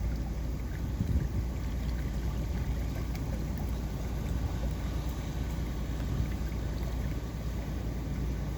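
Steady low rumble of a passing vessel, mixed with wind buffeting the microphone.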